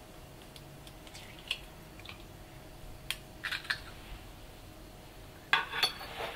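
Faint, scattered light clicks and taps of hands handling an egg and kitchen things at a worktop, with a small cluster of taps about three and a half seconds in and a louder one near the end.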